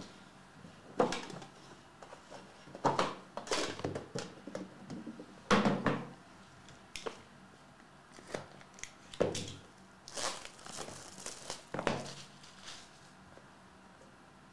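A hockey trading-card box and its packaging being handled and cut open: irregular crinkling, scraping and tearing with a few knocks.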